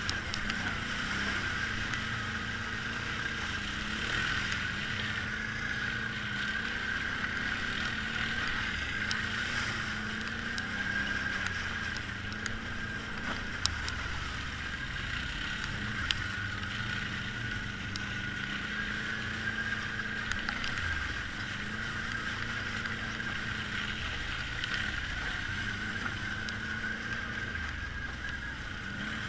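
ATV engine running at a steady trail pace, heard from on board the quad, with a steady high whine over the engine note. A few sharp ticks sound around the middle.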